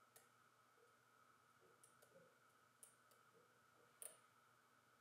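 Faint, sparse clicks of a steel lock pick working the pins inside a Millenco Magnum 7x4 security lock under tension, about four clicks, the loudest about four seconds in.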